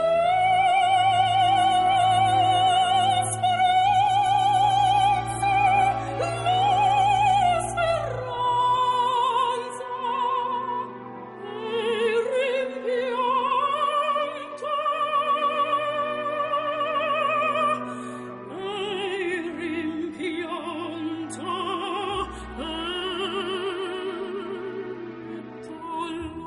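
Background music: a slow operatic vocal line of long, wavering held notes with vibrato over a steady low accompaniment.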